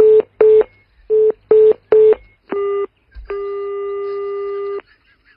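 A telephone call being placed: five short beeps at one pitch as the number is keyed, a brief tone, then one long ringing tone of about a second and a half on the line (the Spanish ringback tone) while the call rings through.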